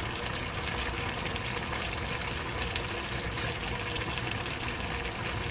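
A pot of collard greens and smoked turkey boiling hard on high heat, a steady bubbling rush of water with faint scattered ticks.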